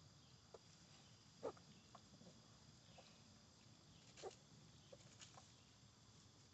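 Faint, short grunts and squeaks from five-day-old piglets nuzzling at a sow's belly, scattered through the quiet, the clearest about a second and a half in and again just after four seconds.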